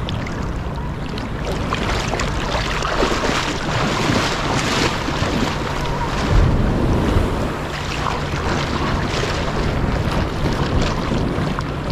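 Sea water washing and sloshing in the shallows as waves come in, with wind buffeting the microphone. A louder rush of water and wind comes about six seconds in.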